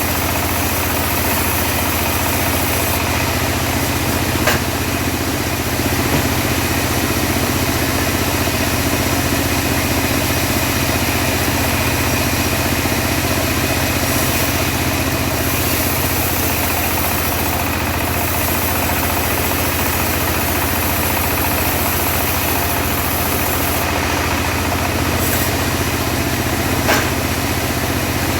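Engine of a homemade portable bandsaw mill running steadily while the blade rips teak. Two short sharp clicks, one a few seconds in and one near the end.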